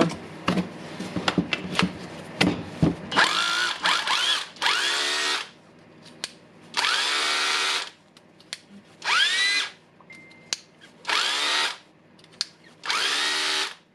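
Makita DHR202 18 V cordless rotary hammer's brushed motor test-run after a switch replacement: after a few handling clicks, the trigger is pulled six times in short bursts of about a second, the motor spinning up with a rising whine each time and stopping between pulls.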